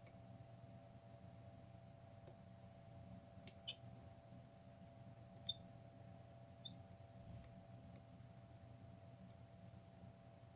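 A few light metallic clicks and ticks from a Yale Platinum 3-star euro cylinder being worked with a GJ Locks Superior/Platinum lock pick, the two loudest about three and a half and five and a half seconds in, some with a short high ring. The clicks are faint over a steady low hum.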